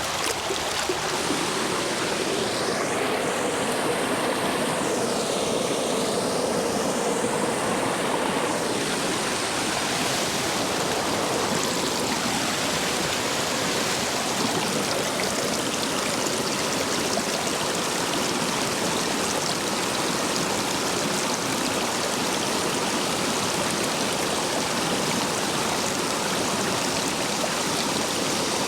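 Stream water rushing steadily through a line of stepping stones, the flow full and strong after heavy rain. Its tone sweeps slowly up and down for the first several seconds, then evens out.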